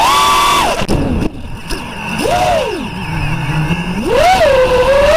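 FPV quadcopter's DYS 2206 brushless motors whining, the pitch rising and falling with the throttle. It punches up at the start and cuts to near idle about a second in as the drone flips. A short burst follows, then it sits low for about a second and climbs again near the end. Heard close from the onboard camera.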